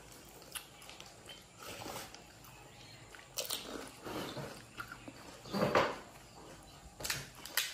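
Close-up eating sounds of crisp panipuri being bitten and chewed, with scattered sharp crackles of the shells. There is one louder noise about six seconds in.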